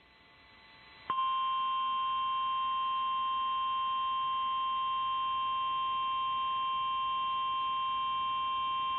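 Emergency Alert System attention signal on AM radio: a single steady electronic tone, the 1050 Hz National Weather Service warning alarm, switching on abruptly about a second in after faint rising static and holding unchanged. It heralds a tornado warning.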